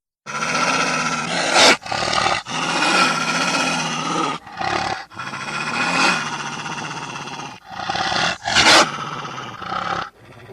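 Created Deinonychus dinosaur vocal sound effects: a string of rough growls and roars separated by short breaks, with two loud, sharp screeches about one and a half seconds in and near the end.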